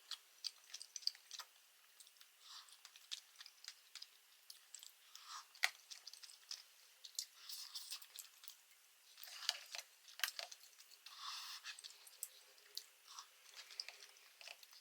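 Close-up chewing and wet mouth sounds of a person eating spicy buldak tteokbokki rice cakes: scattered soft smacks and clicks, with a few short hissy puffs in between.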